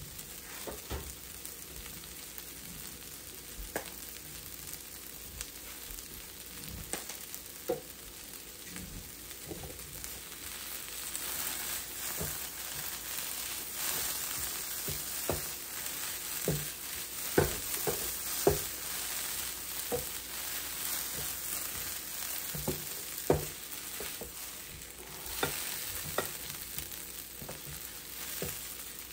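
Sliced bell peppers and onions sizzling on a hot electric griddle, with scattered clicks and scrapes of a utensil stirring them. The sizzle grows louder about a third of the way through.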